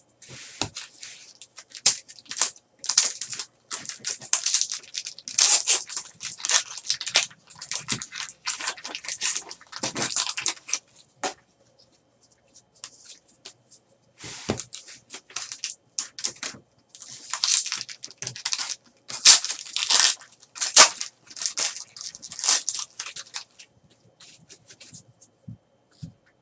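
Hockey card packs being torn open and the cards handled: irregular strokes of wrapper tearing and crinkling and of card stock sliding, with short quiet pauses about halfway and near the end.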